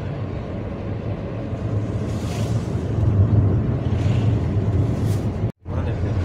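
Car driving noise from inside the moving car: a steady low engine and road drone with a few short hissing swells of wind or passing air. The sound cuts out completely for a split second near the end.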